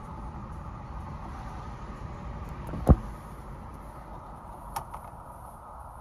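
Steady low rumble of a car's cabin from its engine and road noise, with one sharp knock about three seconds in and a faint click near the end.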